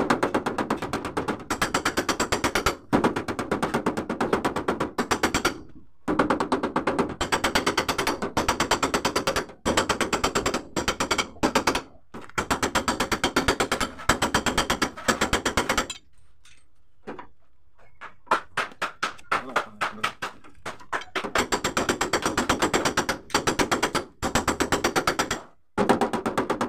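Fast, light hammer taps on the steel door panel of a Mitsubishi L300 van, struck through a protective plastic sheet to tap out dents without damaging the paint. The tapping comes in quick runs with brief pauses, stopping for about two seconds just after the middle.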